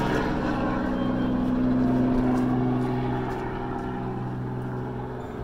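Small helicopter flying away overhead, its rotor and engine drone fading steadily as it recedes.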